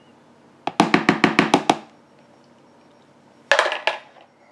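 Quick hard knocks of a utensil tapped against a plastic Vitamix blender container to shake off scooped ice cream: a fast run of about nine knocks, then three more near the end.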